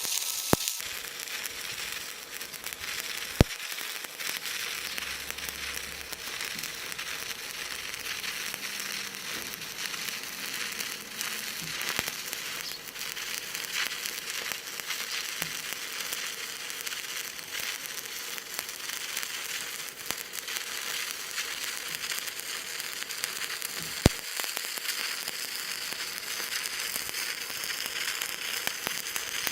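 Electric welding arc crackling and sizzling steadily through a long weld pass, with a few sharp pops standing out.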